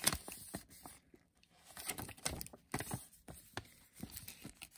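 Plastic blind-bag packaging and toy pieces handled, with scattered light crinkles, rustles and small clicks.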